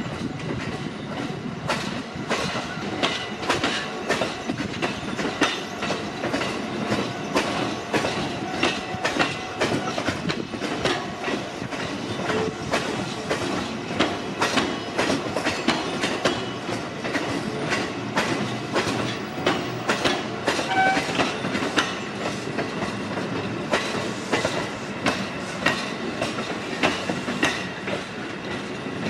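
Train cars of an E531-series electric multiple unit rolling past, towed by a locomotive, with a steady run of wheel clicks over rail joints.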